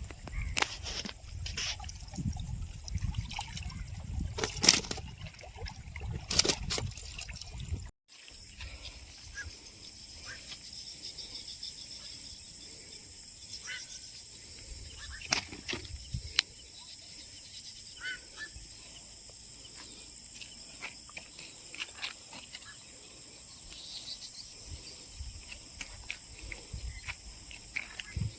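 Outdoor ambience: for the first several seconds a low rumbling buffet with sharp clicks, then after a cut a steady, high-pitched insect drone with scattered ticks.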